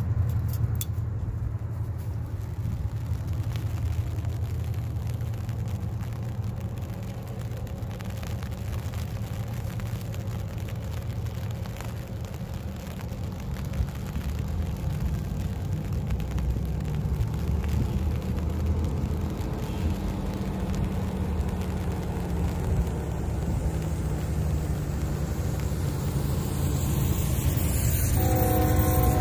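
Low, steady rumble of approaching diesel freight locomotives, GE Evolution-series units, growing slightly louder, with a locomotive air horn starting to sound right at the end.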